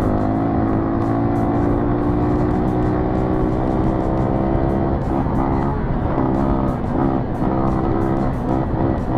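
Dirt bike engine running under throttle while riding. Its note holds steady for about five seconds, then repeatedly falls and rises with the throttle.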